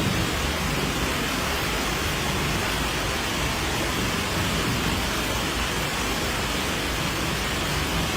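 Steady, unbroken rushing of water in a flash-flood storm.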